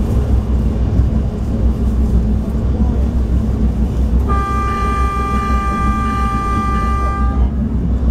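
Stadler GTW diesel light rail train running along the track with a steady low rumble, heard from inside the car. About four seconds in, its horn sounds one held blast of about three seconds, several notes together, then stops.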